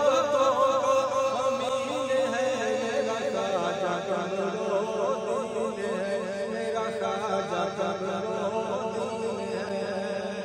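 A man singing a manqabat, a Sufi devotional song, in long wavering wordless runs over a steady held tone in the background. The held tone drops lower about a third of the way in.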